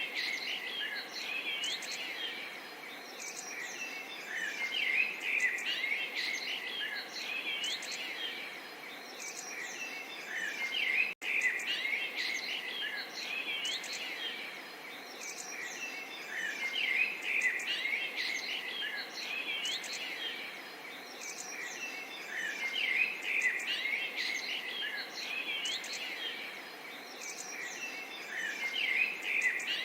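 Many small birds chirping and twittering over a gentle, steady murmur of running water. The sound drops out for an instant about eleven seconds in.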